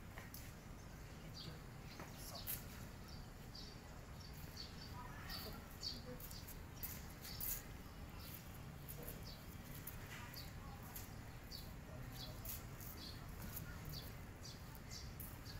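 Small birds chirping: short high chirps about once a second, over a low steady outdoor rumble.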